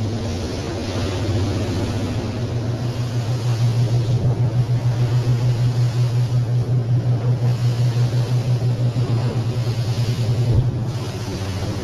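Rigid inflatable boat's engine droning steadily under way, with a hiss of wind and water over it. The loudness throbs about three times a second through the middle, and the drone drops away near the end.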